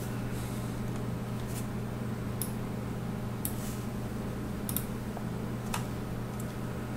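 Faint computer-mouse clicks, about five spread over several seconds, over a steady low electrical hum.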